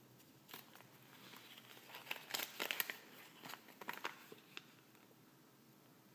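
Thin folded paper toy leaflet crinkling as it is unfolded by hand: a run of crackles, loudest about two to three seconds in, that dies away after about four and a half seconds.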